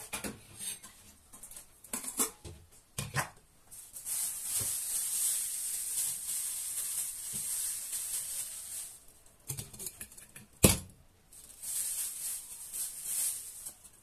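Thin plastic bag crinkling and rustling as banana pieces are handled in it, in two long spells, with a few light knocks at the start and one sharp knock about ten seconds in.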